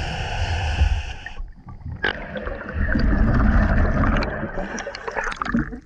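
Scuba diver breathing through a regulator underwater: a hissing inhale in the first second and a half, then exhaled bubbles rushing out from about two and a half seconds in until near the end.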